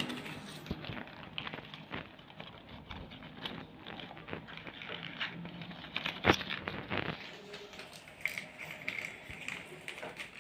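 Sheet paper being handled and folded, with irregular rustling, crinkling and crackling and a sharp click about six seconds in.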